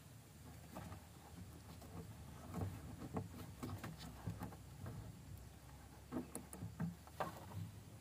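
Faint handling noise: irregular small clicks and rustles of fingers working taped wires and plastic spade connectors onto a gauge's terminals.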